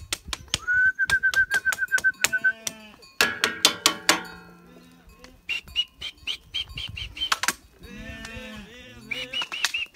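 Goats bleating in a herd, with a rapid run of sharp clicks throughout, loudest in the first half. Small birds call over it, with a fast trill about a second in and short repeated chirps in the second half.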